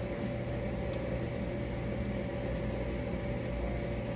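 Steady mechanical hum from a running room appliance, with a single faint click about a second in.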